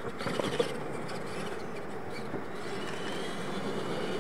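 Radio-controlled monster truck landing off a jump with a thump about half a second in, then its motors and tyres running on across the dirt track.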